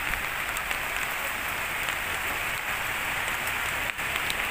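Heavy rain falling steadily: a dense, even hiss with a few scattered drip ticks.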